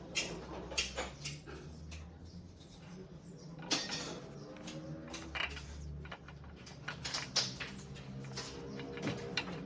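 Irregular clicks, taps and light clinks of small hard objects being handled, a few sharper knocks among them, over a faint low hum.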